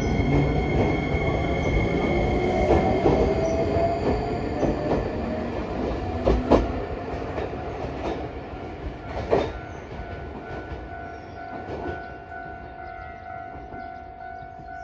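Iyotetsu 3000 series electric train pulling away from a station. Its motor whine rises in pitch as it gathers speed, and the wheels knock sharply over rail joints a handful of times. The sound fades as it runs off into the distance.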